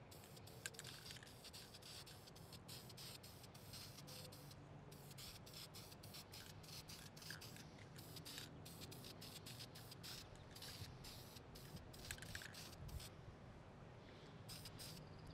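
Aerosol can of black engine paint spraying onto a metal battery hold-down bracket: a faint hiss with a few short pauses, about five, ten and thirteen seconds in.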